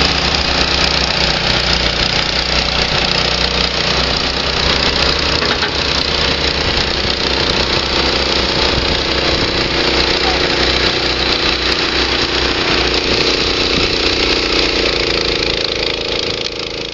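Diesel engine of a John Deere backhoe loader running steadily as it tows a loaded boat trailer.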